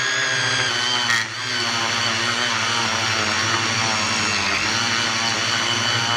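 Battery-powered lawn edger running steadily as its blade cuts the grass edge along a concrete kerb: a steady motor whine over a grinding cutting noise. A single sharp knock comes about a second in.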